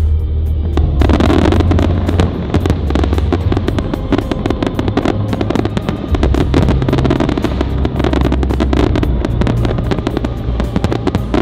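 Aerial fireworks crackling and popping in dense, rapid bursts from about a second in, over loud music with a heavy, steady bass.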